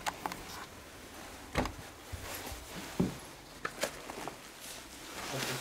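A few scattered light knocks and rustles of movement and handling, the loudest about a second and a half in and at three seconds.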